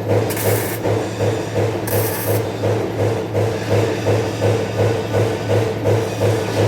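Machinery running with a steady, rhythmic cycle: a low hum pulsing about three times a second, with two short hisses like compressed air in the first couple of seconds.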